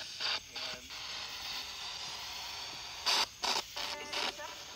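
Spirit box (ghost box) radio sweeping through stations: a steady static hiss broken by short, choppy bursts of chopped radio sound, twice near the start and a quick cluster about three seconds in.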